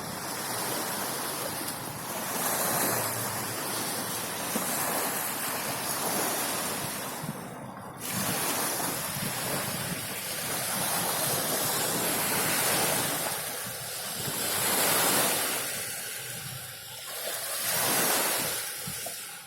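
Sea surf: waves breaking and washing in, the rush swelling and fading every few seconds.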